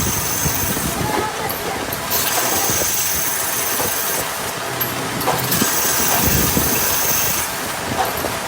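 Factory machinery running with a steady hiss and a few knocks, its character changing every second or two.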